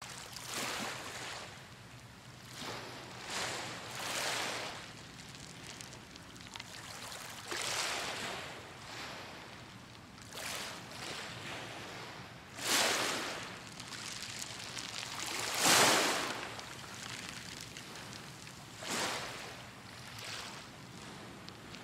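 Small waves washing against the shore in irregular swells of rushing noise every one to three seconds, the loudest about two-thirds of the way through.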